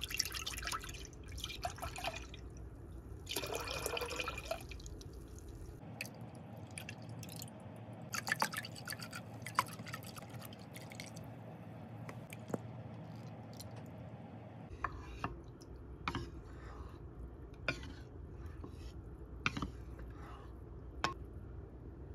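Milk pouring from a carton into a pot in several short spells of splashing liquid, with scattered light clicks and taps, more of them in the second half.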